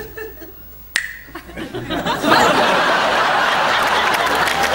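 Studio audience laughing, with a sharp click about a second in; from about two seconds in the audience breaks into loud, sustained laughter and applause.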